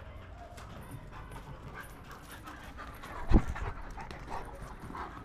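Black German Shepherd dogs panting as they play, with many short scuffling clicks. A loud thump comes a little over three seconds in as a dog presses right up against the camera.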